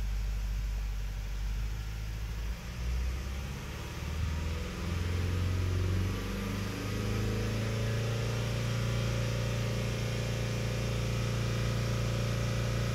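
Mazda 2.2 Skyactiv-D four-cylinder diesel engine running at about 1500 rpm, then revved up over a few seconds and held steady at about 3500 rpm during an oil-pressure check on fresh oil.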